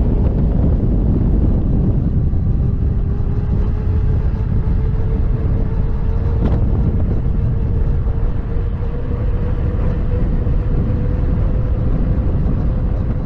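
Riding a KingSong S22 electric unicycle: heavy wind rumble on the microphone with a steady hub-motor whine that creeps slightly up in pitch, and a brief tick about halfway through.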